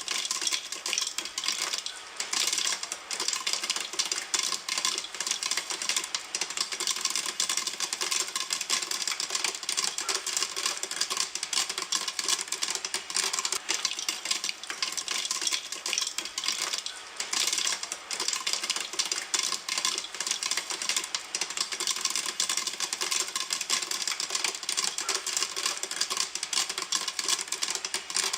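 Popcorn popping in a pan: a dense, steady stream of rapid pops and clicks.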